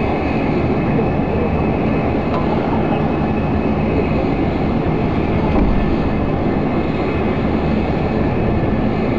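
Steady jet-turbine noise from aircraft on the airport apron, a constant rushing with a faint high whine over it.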